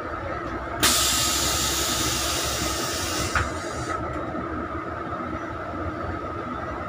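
A steady engine hum with a held high whine. About a second in, a loud hiss starts suddenly and fades away over about three seconds, with a short click near its end.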